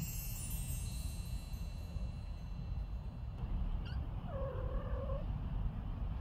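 Adult female tabby cat giving one drawn-out meow about four seconds in, calling her kittens to come out, over a steady low rumble. Chime tones fade out during the first two seconds.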